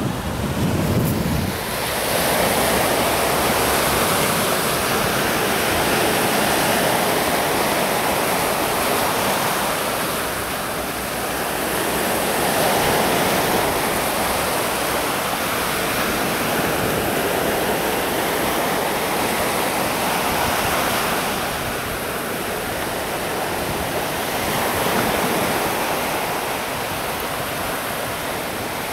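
Steady rushing noise of sea and wind, swelling and easing every few seconds, with a low wind rumble on the microphone in the first second or so.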